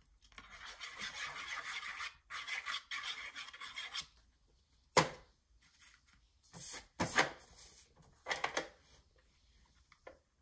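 Hands rubbing and pressing a glued piece of patterned cardstock down onto a paper pocket on a grooved plastic scoring board. Two stretches of rubbing of about two seconds each come first, then a few sharp taps and paper-handling sounds.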